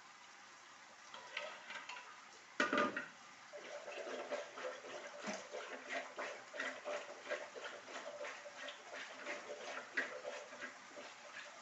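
Food sizzling and crackling in hot oil in a pan, with stirring. A short loud burst comes about two and a half seconds in, after which the sizzling grows steady and busy.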